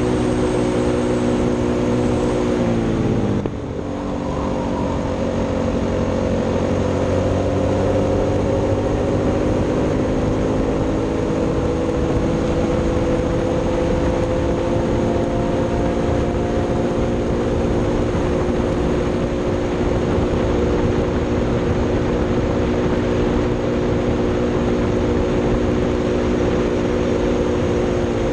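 Racing kart engine running hard on track. Its pitch drops sharply about three seconds in as the driver lifts for a corner, then climbs slowly and holds high along a long straight, and falls again right at the end.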